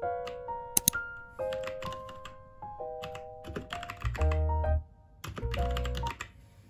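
Key presses on a Royal Kludge RK837 (RKG68) mechanical keyboard with brown switches, coming in short clusters of clicks, over light background music with a piano-like melody.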